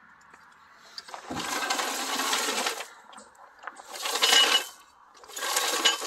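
Steel floor jack dragged across gravel in three pulls, its wheels crunching and rattling over the stones, each pull lasting about a second or more.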